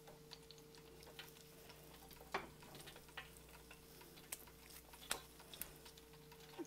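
Faint, irregular pops and crackles of hot oil in an electric deep fryer as spring rolls fry, over a low steady hum.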